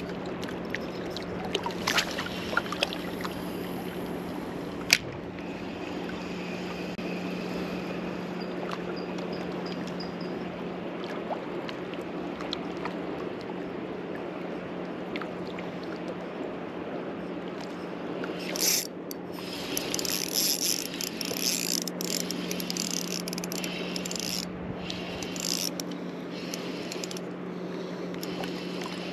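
Steady wash of river water along a rocky bank under a constant low hum. Sharp clicks from a spinning reel being handled come in the first few seconds, and patchy bursts of hiss come later on.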